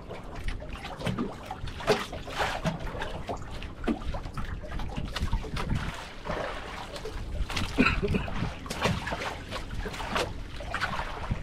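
Water splashing and trickling aboard a small fishing boat, with many irregular short splashes and knocks.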